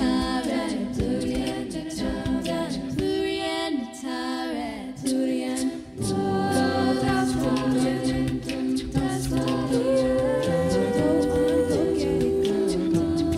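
A school class singing a song together as a choir, several voices holding long notes.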